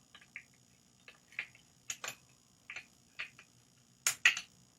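Light clicks and taps of hard plastic and metal parts as an angle grinder and its fittings are handled and tightened, irregular and a fraction of a second apart, with the loudest pair of knocks near the end.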